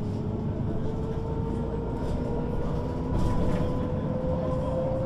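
MAN NG 313 articulated bus running, its engine a steady low rumble under a ZF gearbox whine that rises slowly in pitch throughout. A brief louder rattle of noise comes about three seconds in.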